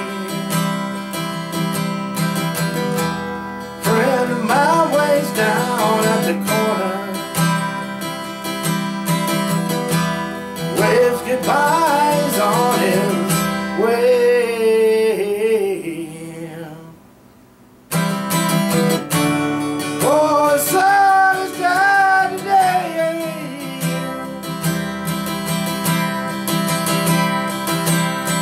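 Acoustic guitar strummed in steady chords, with a man singing a slow song over it in phrases. About two-thirds of the way through, the sound drops almost to nothing for about a second, then the guitar and voice come back.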